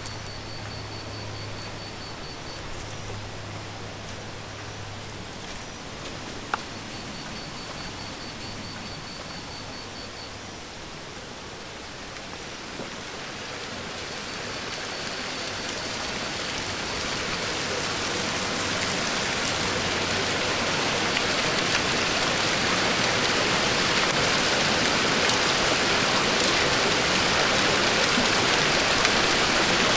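Rushing water of a waterfall with running channel water, faint at first and growing steadily louder through the second half as the falls come near.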